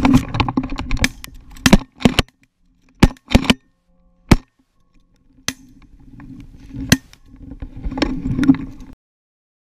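Shotgun blasts from several hunters firing at Canada geese: about eight sharp, loud shots at irregular intervals, some in quick pairs, with rougher noisy stretches near the start and near the end.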